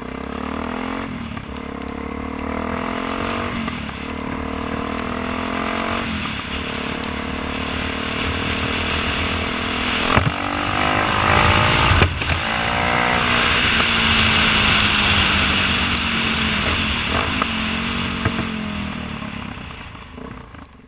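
Suzuki DRZ400S's single-cylinder four-stroke engine, breathing through an aftermarket end can, accelerating hard. The revs climb and drop back at three upshifts in the first six seconds, then are held high under load with heavy wind rush on the microphone, and fall away as the bike slows near the end.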